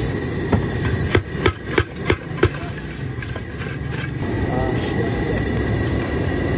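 A steel spice shaker shaken over fries in a steel bowl, giving a quick run of sharp metal clacks, about six in two seconds, with a few fainter ones after, over steady background noise.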